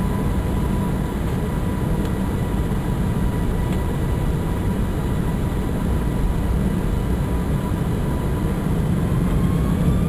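Airliner engines heard from inside the cabin, running up for take-off: a loud, steady rumble with a thin whine that starts to rise in pitch near the end.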